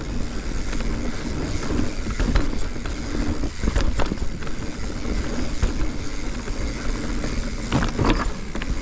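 Mountain bike running down a dirt singletrack: steady tyre rumble on the trail with frequent clicks and knocks from the bike rattling over bumps, heard through a chest-mounted action camera.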